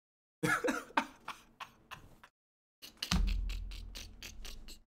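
A man laughing in short, breathy bursts. About three seconds in, a deep low boom sets in and slowly fades under the laughter.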